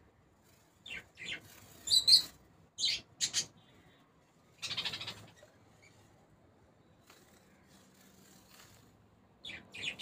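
Small bird chirping: several short, sharp chirps in quick runs, loudest about two seconds in, with a longer rapid trilled call near the middle and another pair of chirps near the end.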